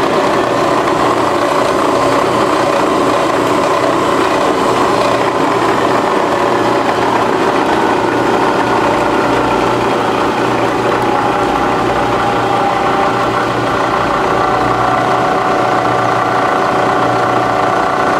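Bridgeport Series I CNC vertical milling machine running steadily, its spindle drive giving a continuous hum with a high whine; one whine tone shifts a little and a new one joins about two-thirds of the way through.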